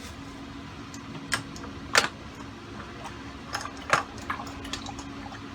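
Scattered sharp clicks and clinks of metal tools and engine parts being handled, about six in all, the loudest about two seconds in and another just before four seconds, over a steady low hum.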